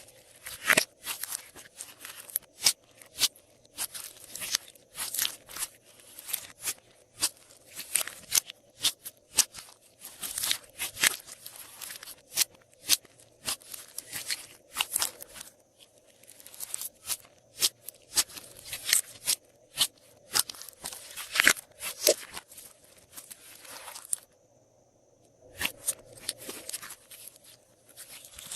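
Hands kneading and stretching glossy slime: a fast, irregular run of wet clicks, pops and crackles, with about a second's pause near the end.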